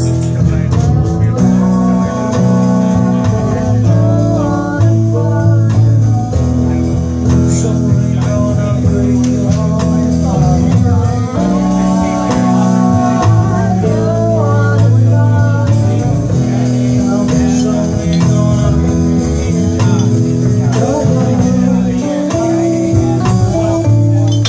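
Live band playing a song at a steady, loud level: strummed acoustic guitar, electric guitars and a drum kit, with sustained melody notes over a low bass line.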